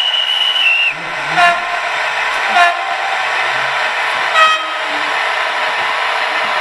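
LokSound 4.0 sound decoder in a Roco model SBB Re 460 electric locomotive, playing locomotive sound through its small speaker. A held high horn tone ends about a second in, then three short horn-like toots sound over a steady hiss of running sound and wheels on the track.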